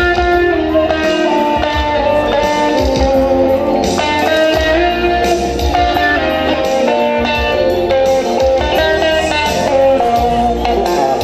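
Live music from an amplified guitar and a bowed fiddle playing a lively tune together, with held and sliding melody notes over steady plucked strumming.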